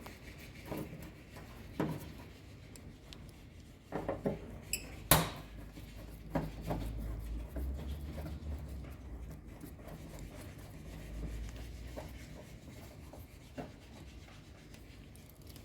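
Screws being taken out of a front-load washing machine's front cover with a screwdriver: rubbing and scraping with scattered clicks and knocks, the sharpest a little past five seconds in.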